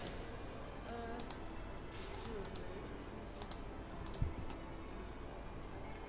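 Scattered faint clicks from a computer mouse and keyboard being worked, with one louder soft thump just after four seconds in, over a steady low hum.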